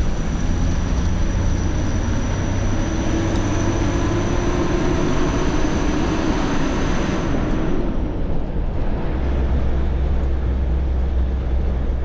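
Steady rumble and road noise of a vehicle being driven. A faint high whine fades out, along with the hiss, about eight seconds in.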